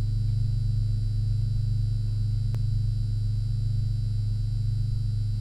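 A steady low electrical hum with a faint high whine above it, and a single faint click about two and a half seconds in.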